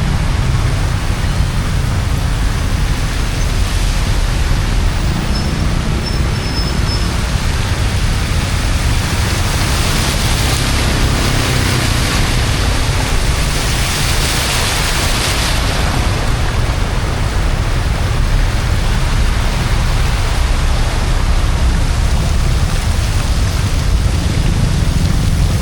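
Steady rushing water noise with a low rumble; the hiss grows brighter for several seconds near the middle.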